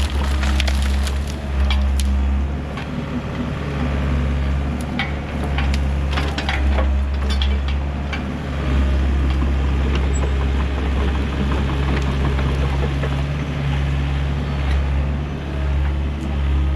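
Excavator's diesel engine running steadily under load while brush and branches crack and snap over and over.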